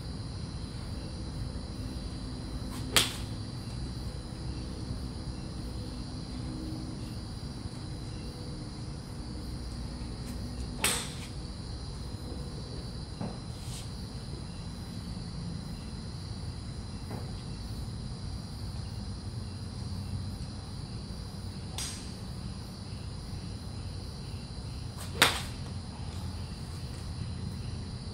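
Sharp clicks of a golf iron striking balls off a driving-range mat: two loud strikes about 3 s and 25 s in, with fainter ones between. Crickets chirr steadily throughout.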